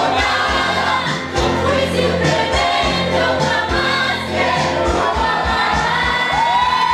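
A song with a lead singer and backing voices over a steady beat; near the end the lead voice rises into a long held high note.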